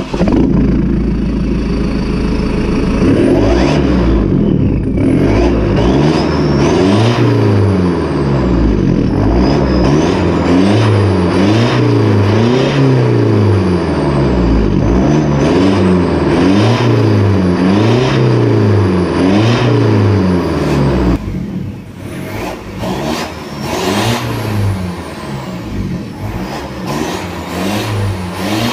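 2019 Ford Ranger Raptor's 2.0-litre twin-turbo diesel four-cylinder firing up through an aftermarket turbo-back exhaust, then revved again and again, rising and falling about every two seconds, to a little over 2,000 rpm. About two-thirds of the way through it turns quieter, heard from behind the truck at the tailpipe.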